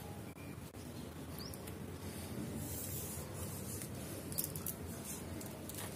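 Plastic basket-weaving wire rustling and scratching as it is handled and woven, in faint irregular bursts over a steady low hum.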